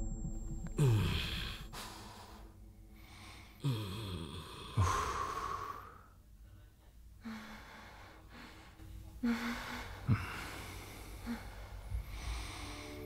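A person breathing heavily, with several separate gasps and sighs, some with a short falling voiced edge.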